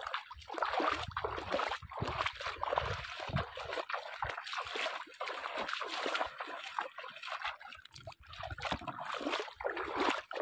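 Bare feet splashing and sloshing through shallow water, one wading step after another.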